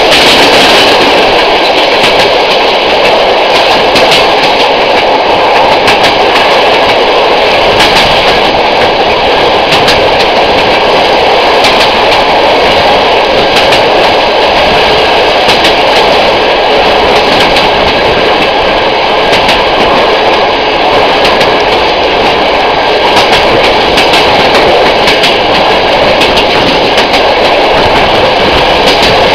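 Passenger train hauled by an SM48 diesel locomotive, running steadily, heard from an open side window: a loud, even rush of rolling noise and wind with the locomotive's diesel engine under it, and scattered clicks of the wheels over rail joints.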